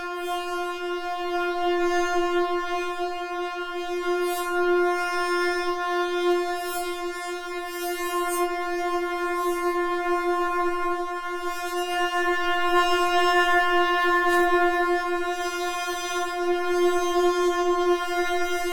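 Synthesizer holding one steady note, rich in overtones, with its tone colour shifting in a 'talking', vowel-like way as the upper partials brighten and fade. A faint click comes about fourteen seconds in.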